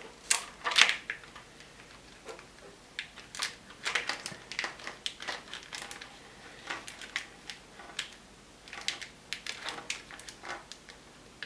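Plastic wire loom being worked over a bundle of wires, giving irregular crinkling clicks and rustles.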